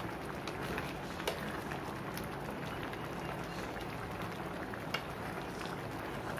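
Beef tripe curry simmering and bubbling in a pan as a spatula stirs through it. There are two sharp clicks of the spatula against the pan, one about a second in and one about five seconds in.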